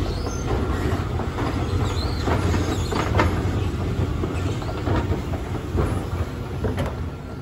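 Escalator running: a steady low mechanical rumble with occasional clicks and rattles of the moving steps.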